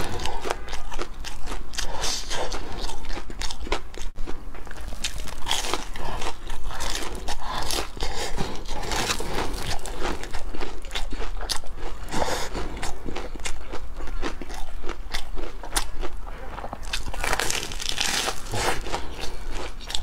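Close-miked biting and chewing of a crunchy breadcrumb-coated fried pastry. Crisp crunches repeat, with louder bursts every few seconds and the densest crunching near the end.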